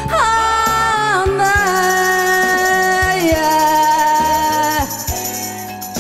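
A woman singing a ballad into a microphone over a karaoke backing track, holding one long note with vibrato that steps down in pitch twice and ends about five seconds in, after which the instrumental backing plays on alone.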